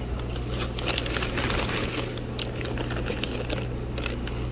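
Plastic shipping bags crinkling and rustling in irregular crackles as hands rummage in a fish box's liner and untie a bagged fish, over a steady low hum.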